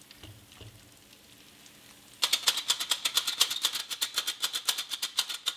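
A metal sugar shaker shaken rapidly over fried pastries to dust them with confectioner's sugar: an even rattle of about seven shakes a second, starting about two seconds in.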